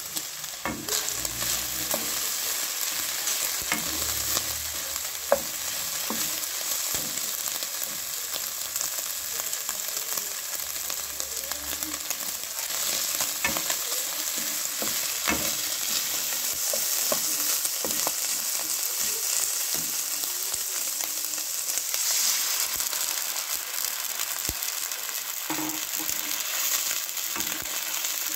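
Minced pork, garlic and onion sizzling in oil in a non-stick wok, a steady frying hiss, stirred with a wooden spatula that gives occasional scrapes and taps against the pan.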